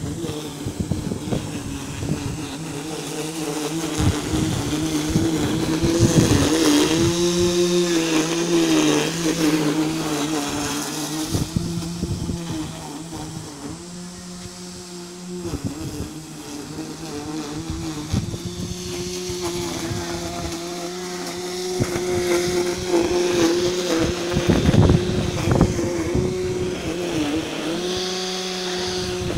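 Remote-controlled lawnmower's motor running with a steady whine that dips in pitch a few times, as when the blade takes on load, with bursts of rough clatter as it works the grass.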